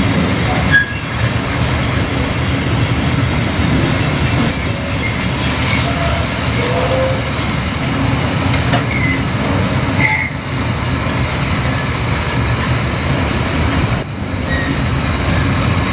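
Covered hopper freight wagons rolling past slowly on bogies: a steady rumble of steel wheels on rail, with a few short wheel squeals and a few sharp knocks.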